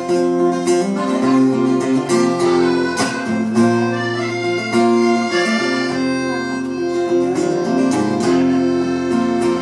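Instrumental passage of an acoustic guitar with a lap-played dobro (resonator guitar) playing a sustained slide melody over it.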